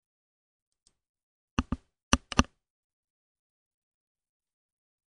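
Computer mouse button clicks: a faint tick, then two quick clusters of sharp clicks about a second and a half and two seconds in.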